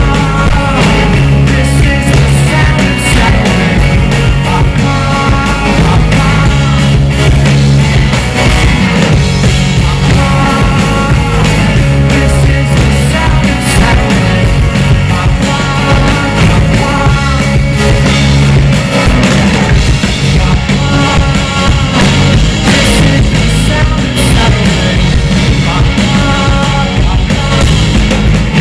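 Rock band playing live with drums, bass and electric guitars, a short melodic phrase recurring every couple of seconds over a steady beat.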